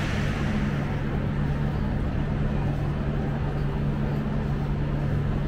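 Steady din of a large railway station hall: a constant low hum with a faint murmur of voices.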